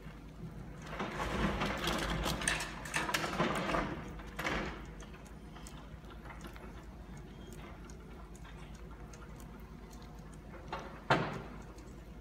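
Demolition excavator's grab tearing into a building: masonry and roofing crunch, crack and clatter down for a few seconds, ending in a sharp crack. A low rumble carries on underneath, with one sharp knock near the end.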